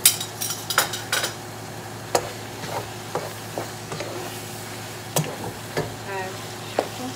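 A utensil stirring ground beef in a frying pan, knocking and scraping against the pan over a steady sizzle of the meat browning. There is a quick run of knocks at the start, then single taps every half second or so.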